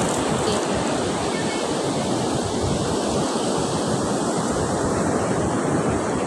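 Sea surf washing on a beach, a steady rush of water, with wind buffeting the microphone.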